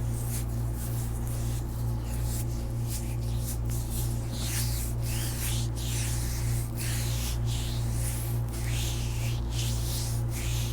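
Hands rubbing and stroking skin in a foot massage: quick hissing strokes, about two or three a second, over a steady low hum.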